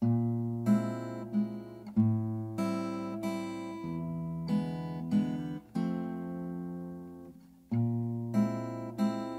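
Acoustic guitar music: chords picked note by note, changing about every two seconds, starting suddenly.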